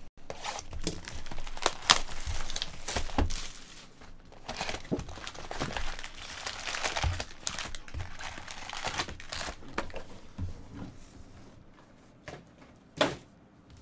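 Plastic wrapping on a box of 2015 Bowman Draft Jumbo baseball card packs being torn open and crumpled by hand: an irregular crinkling with sharp snaps. It dies down near the end, apart from one last short crackle.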